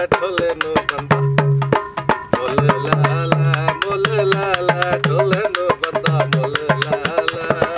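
Punjabi folk dance music: a quick hand-drum beat under a wavering melody, with a deep bass note pulsing in short stretches.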